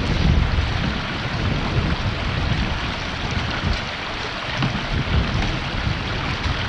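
River water rushing steadily, with wind buffeting the microphone in uneven low rumbles.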